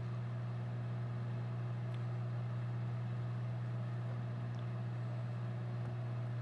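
Microwave oven running with a steady low hum, heating ice cream to soften it; a couple of faint ticks.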